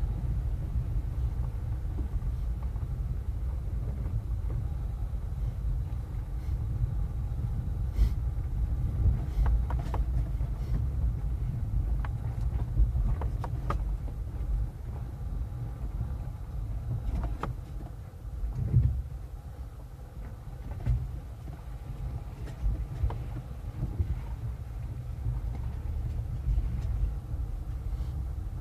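A car driving on a rough dirt road, heard from inside the cabin: a steady low rumble of engine and tyres, with scattered knocks and rattles as it goes over rocks and bumps.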